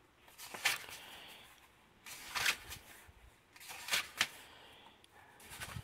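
Pages of a paperback book being turned and flipped by hand: a light papery rustle with several sharp page flicks.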